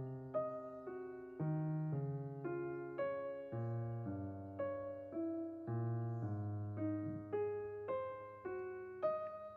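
Background piano music: a calm run of single struck notes over low bass notes, each note fading after it is struck.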